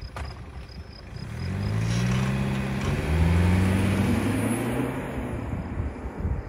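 Mercedes-Benz E 220d's two-litre four-cylinder diesel accelerating hard from a standstill in Sport mode. The engine note rises, drops once at a gear change about halfway through, climbs again, then fades as the car drives away.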